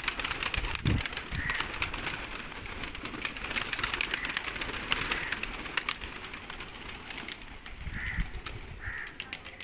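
A flock of fancy pigeons flapping their wings in quick clattering bursts as they leave a coop and land, with a few short bird calls and a low thump about a second in.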